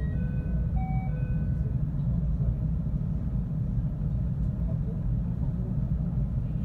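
521-series electric train running, a steady low rumble of wheels and traction motors. In the first second and a half a short run of steady high tones at several different pitches sounds over it.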